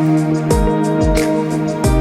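Background music with a steady beat: sustained chords over a regularly pulsing low drum and short sharp percussion hits.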